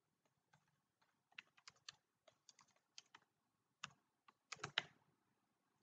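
Faint computer keyboard keystrokes, a few scattered key clicks in small bunches as a short word is typed.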